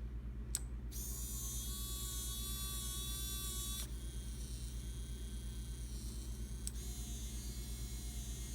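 Small continuous-rotation servo motors running: a steady buzzing hum under a gear whine that shifts in pitch and strength about one, four and seven seconds in. Two sharp clicks, about half a second in and near seven seconds in.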